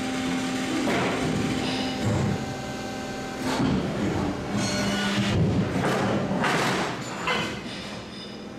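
Thick steel plate scraping and knocking against the steel bed of a press brake as it is slid into position, several short scrapes and clunks over a steady machine hum.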